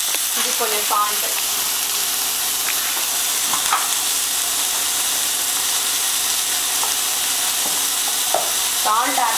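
Chopped onion and tomato sizzling in oil in a stainless steel frying pan. A metal slotted spoon stirs the pieces, scraping and clinking on the pan now and then.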